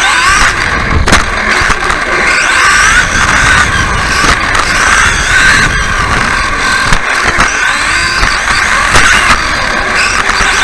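Onboard sound of a radio-controlled offroad buggy racing: a high whine from its motor and drivetrain that rises and falls in pitch as it speeds up and slows for the turns, over a low rumble from the chassis on the track.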